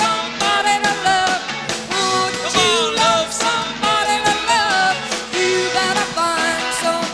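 Live rock band playing, with a voice singing over the band.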